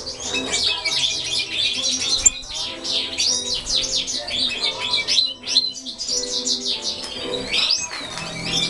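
Captive European goldfinches twittering and chirping: a dense, unbroken run of quick high notes from several birds at once.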